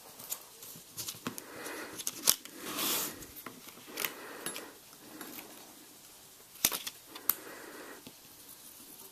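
Pencil point tapping and scratching through the holes of a plastic template onto a leather strap, with short rustles as the template is slid along the strap. A few sharp clicks stand out, loudest about two seconds in and again near seven seconds in.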